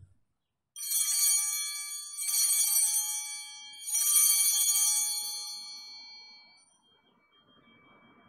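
Altar bells rung three times at the elevation of the chalice, marking the consecration; each ring is a bright shaken jingle of several high bell tones, and the last one fades out slowly.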